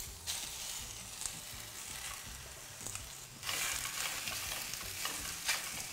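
Marinated chicken breast pieces, coated in paprika and flour, sizzling as they fry in a hot pan greased with cooking spray. The sizzle grows louder about three and a half seconds in, with a few light knocks.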